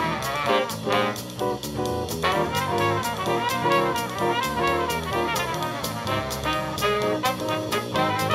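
Swing jazz recording in an instrumental break with no singing: horns playing over a steady beat. It is played back through the SoundArtist S5B bookshelf loudspeakers driven by the SA-200IA amplifier, as a listening sample.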